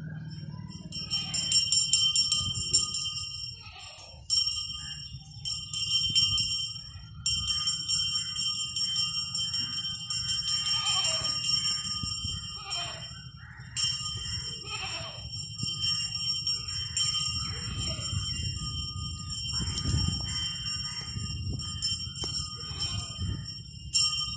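Bells jingling in a continuous ringing that breaks off and starts again several times, over a low rumble.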